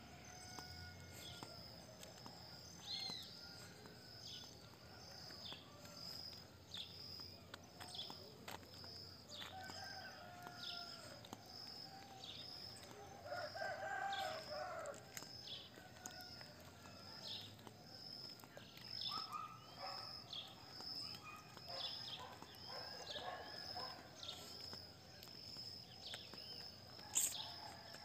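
Faint outdoor background of birds calling now and then, with a steady high insect trill and a short falling call repeating under it; the loudest call comes about halfway through.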